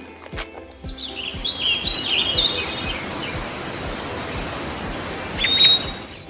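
Birds chirping, with many quick high notes and short sweeping calls over a steady hiss of outdoor noise that starts about a second in; a single longer call comes near the end.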